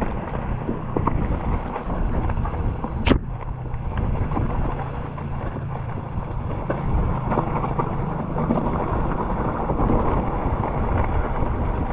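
Mountain bike rolling fast down a muddy dirt trail: wind rumble on the camera's microphone over the scrape and rattle of tyres and frame on the rough ground, with many small knocks and one sharp knock about three seconds in.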